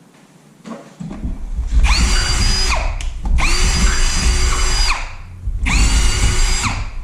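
Electric drill running in three bursts. It spins up to a steady whine each time, with a rumble from the bit cutting, while drilling the holes for the bench vise's mounting bolts.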